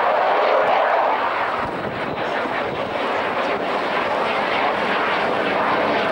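Eurofighter Typhoon's twin EJ200 jet engines during a slow, gear-down flypast: a steady, rushing jet noise that dips slightly about two seconds in.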